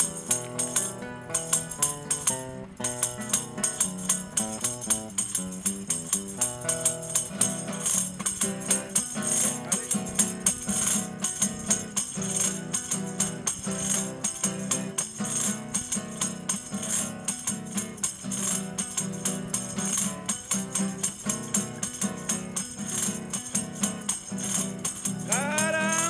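Instrumental cueca: acoustic guitar strumming chords, with a small wooden hand-held rattle shaken and tapped to a steady beat. A man's voice begins singing just before the end.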